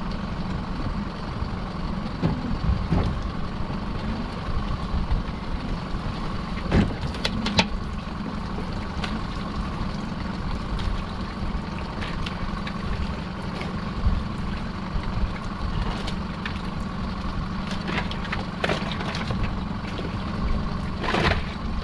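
Small fishing boat's engine running steadily at idle while a crab pot is hauled aboard, with a few short knocks from the pot and gear, the loudest at about seven seconds and near the end.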